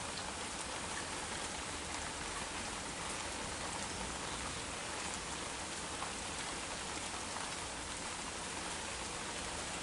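Heavy rain falling steadily on surfaces, an even hiss with faint drop ticks.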